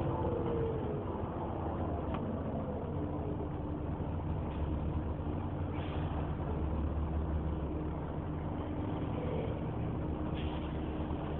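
Volvo B7TL double-decker bus standing with its engine idling and its cooling fan running hard, a steady vacuum-cleaner-like whine over the low engine rumble.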